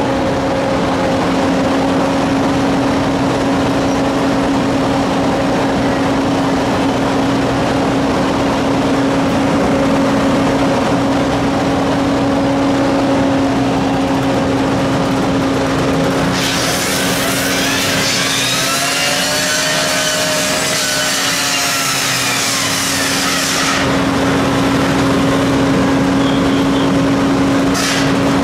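A fire apparatus engine running steadily at one constant pitch. Past the middle, a loud hissing rush sweeps in over it for about seven seconds. A similar rush starts again just before the end.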